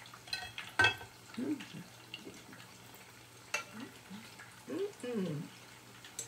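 Sweet-plantain fritters sizzling in hot oil in a pot, with metal utensils knocking against the pot as they are turned and lifted out: a sharp knock just before a second in and another about three and a half seconds in.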